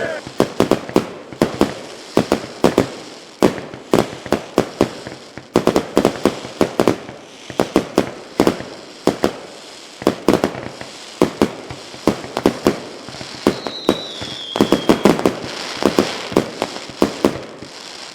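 Fireworks going off: a rapid series of sharp bangs with crackling between them, and a short whistle falling slightly in pitch near the end.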